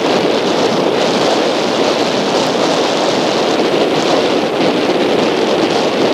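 Strong wind buffeting the microphone over choppy surf, a steady rushing noise with small waves breaking close by.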